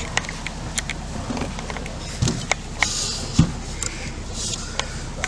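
Boat engine running steady and low, with scattered sharp clicks and knocks of equipment being handled close by.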